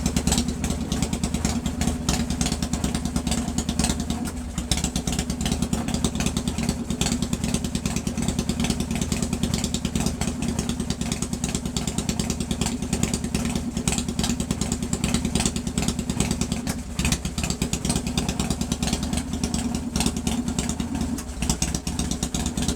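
1997 Harley-Davidson Fat Boy's air-cooled Evolution V-twin engine, fitted with a Mikuni carburettor, running steadily with a dense, even firing pulse.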